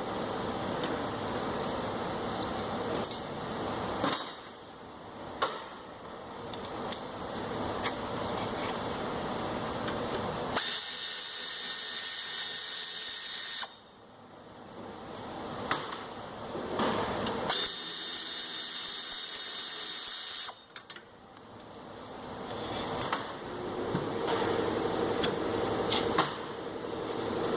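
Tool work on a rear disc brake: scattered clicks and knocks, with two loud bursts of hissing about three seconds long, about ten and eighteen seconds in.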